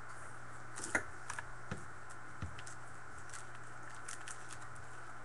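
Faint handling of trading cards: a few light clicks and rustles over a steady low hum.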